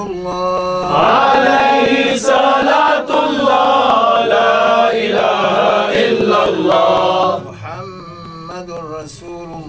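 Men's voices chanting a Sufi dhikr together. The chant is loud from about a second in and drops to quieter voices about two seconds before the end.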